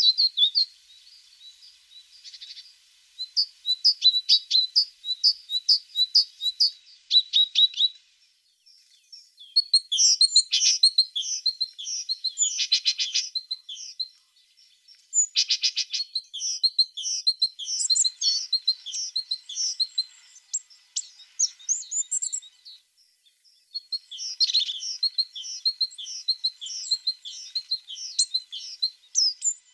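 Tits singing and calling: a busy run of high, quick chirps and trills, overlapping as from several birds, with short lulls about a third of the way in, near the middle, and again about three-quarters through.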